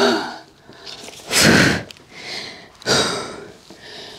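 A person's strained, breathy huffs and exhalations while lifting a heavy 25-kilo boxed desk frame: three bursts, the loudest about a second and a half in.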